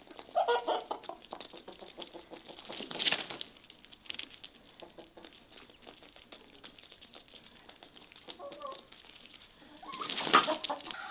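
Domestic chickens clucking in short calls, near the start and again about eight seconds in, with two brief louder noisy bursts in between and near the end.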